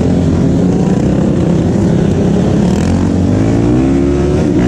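Several motorcycle engines running close by, one revving with a rising pitch near the end; the sound cuts off suddenly.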